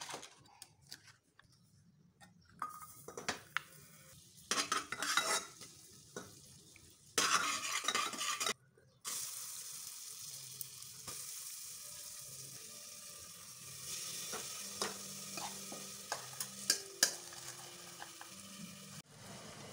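A metal spoon scraping and clinking as butter is scooped, then black sticky rice frying in melted butter in an aluminium pressure cooker: a steady sizzle from about halfway, with clinks of a spoon stirring against the pot.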